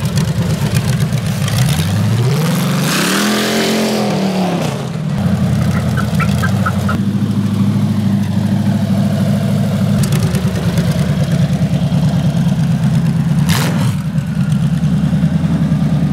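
A 350 V8 on a motorized bar stool running through open headers, a steady low-speed rumble. About three seconds in it is revved up and falls back.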